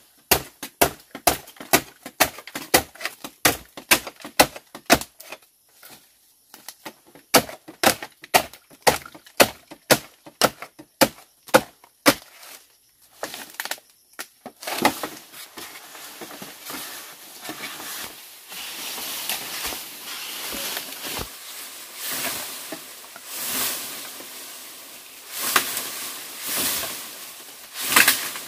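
Blade chopping into the base of a green bamboo stem, sharp woody strikes about two a second with a short pause partway, stopping after about twelve seconds. Then bamboo leaves and branches rustle and swish in uneven swells.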